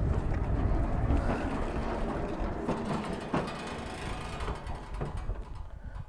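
Lucas Mill swing-blade sawmill carriage pushed by hand along its rails with the saw engine off, a low metallic rumble with scattered clunks that fades toward the end. The blade is being run past the log to check its clearance before adjusting for the log's taper.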